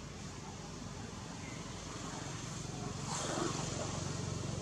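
A motor vehicle's engine running steadily at a distance, a low hum that grows a little louder, with a short rush of noise about three seconds in.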